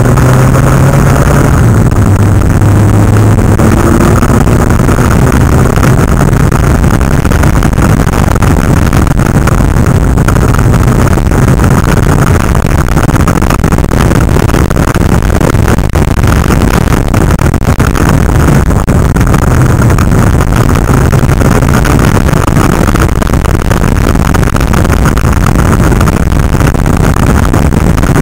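Motorcycle engine running at road speed under heavy, steady wind rush on the microphone, the engine pitch rising briefly in the first couple of seconds.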